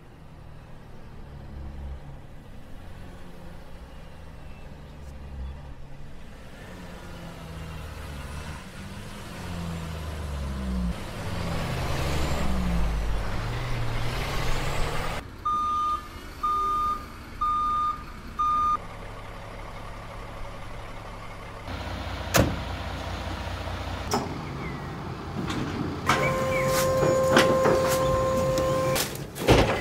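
Livestock truck's engine running, its pitch climbing and shifting as the truck comes up the lane, then its reversing alarm beeps four times, about a second apart. Later comes a sharp click, then a steady tone held for about three seconds, with metallic clanks near the end as the rear loading ramp is worked.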